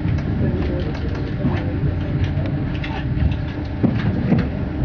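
Train running, heard from inside the passenger carriage: a steady low rumble of wheels on rail with scattered knocks from the track, two stronger ones near the end.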